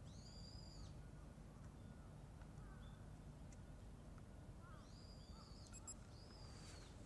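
A bird calling faintly three times, each call a short high note that arches up and falls away, over a low steady hum.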